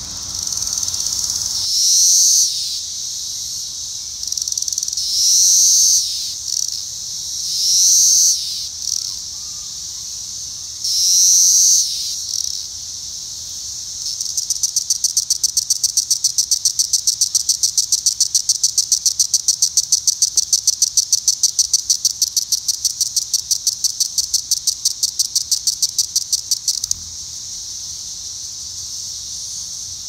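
Brood X periodical cicadas calling: four high buzzing calls of about a second each, each swelling and dropping in pitch at the end. Then, from about halfway, a long run of rapid ticks, about five a second, which stops abruptly a few seconds before the end.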